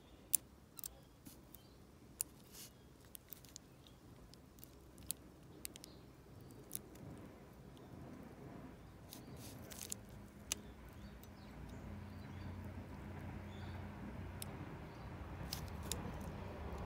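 Small, irregular metallic clicks and ticks of a wire pick working inside a dimple-lock cylinder. A low rumble builds up in the second half.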